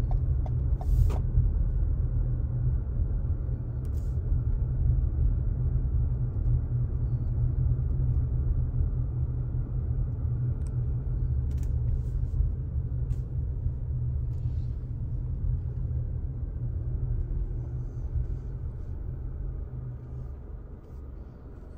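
Low road and engine rumble heard inside a moving car's cabin, with a few faint clicks, growing steadily quieter toward the end.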